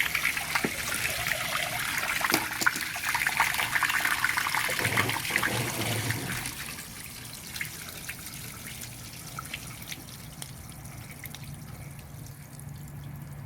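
Water left standing in a Kenmore washer that no longer drains, running out of the disconnected pump hose with a splashing trickle that eases off about six or seven seconds in to a faint dribble and scattered drips.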